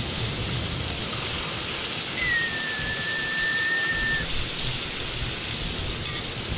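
Butterfish fillets frying in butter in a pan on a portable gas camping stove, a steady sizzling hiss. A thin whistling tone sounds for about two seconds in the middle.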